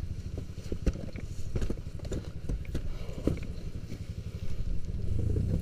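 Kawasaki KLX 150 G's single-cylinder four-stroke engine running at low revs while the dirt bike is walked up a rocky trail, with several sharp knocks and clatter from rocks and the bike. The engine gets louder near the end as the throttle opens.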